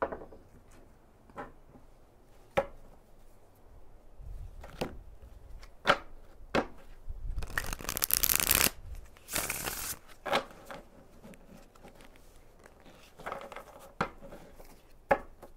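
Tarot cards being shuffled and handled: scattered soft taps and card snaps, with two longer rushes of shuffling about seven and a half and nine and a half seconds in.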